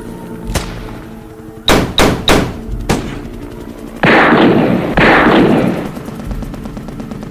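Gunshot sound effects: a single shot, then a quick run of three shots with a fainter fourth. After that come two louder, longer blasts about a second apart, each trailing off with a dense rumble.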